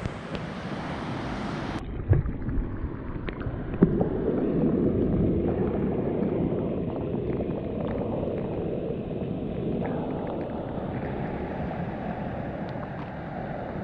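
Water washing and gurgling over rocks, a steady noisy rush with a few small splashes and clicks.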